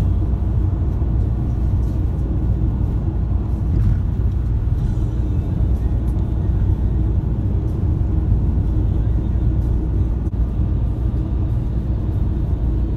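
Steady low rumble of engine and road noise, heard from inside a coach bus cruising on a highway.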